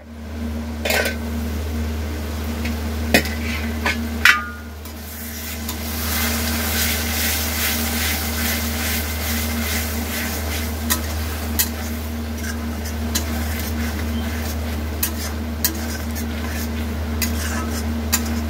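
Metal spatula stirring and scraping masala in an iron kadai. In the first few seconds there are sharp metal knocks, one of them ringing briefly. From about six seconds in the masala sizzles steadily under the spatula's clicks and scrapes, over a steady low hum.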